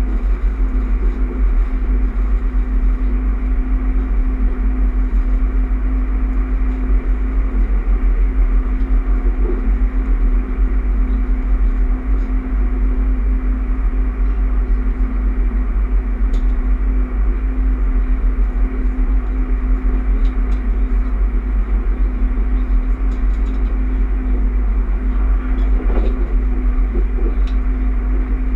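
Steady interior running noise of a Bombardier electric regional train travelling at speed, heard from inside the passenger cabin. There is a deep rumble from the wheels on the rails, a constant hum over it, and a few faint clicks and rattles.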